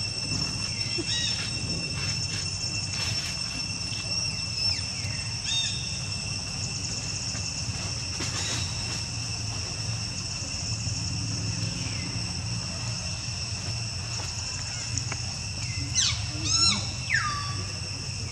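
Steady high-pitched insect drone, with a few short chirping calls scattered through it. Near the end come two or three louder squealing calls that fall sharply in pitch.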